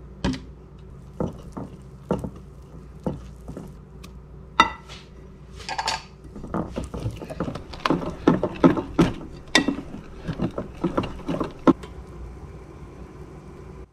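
A wire whisk stirs batter in a glass bowl, clinking against the glass. The taps are scattered at first, then come quickly in a steady run from about six seconds in, over a low steady hum.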